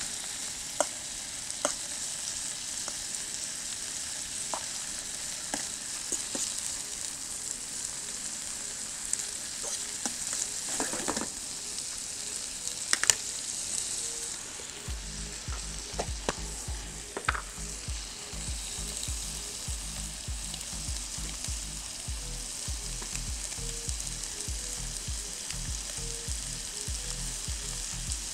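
Bacon sizzling steadily in a frying pan on a gas camping stove, with a utensil clicking and scraping against the pan now and then. About halfway through, background music with a low steady beat comes in.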